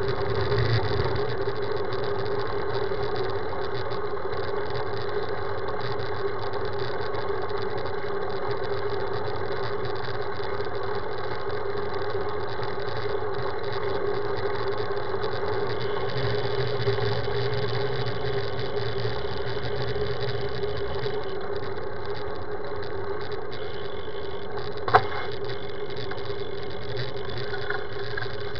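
Steady riding noise of a road bicycle rolling along an asphalt street: wind rush and tyre noise at an even level, with one sharp click about 25 seconds in.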